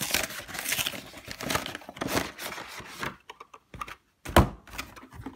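Plastic wrapping on a trading-card collection box crinkling and tearing as it is pulled off, thinning out after about three seconds into a few light clicks and one loud knock.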